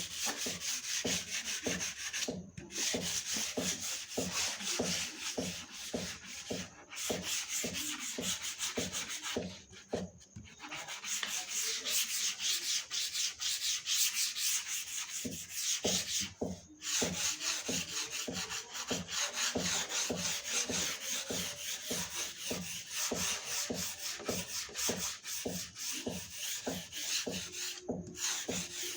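Sandpaper rubbing back and forth over the puttied wooden body of a double-18-inch bass speaker cabinet, smoothing the filler before painting. The rasping strokes come at about three a second, with a few brief pauses.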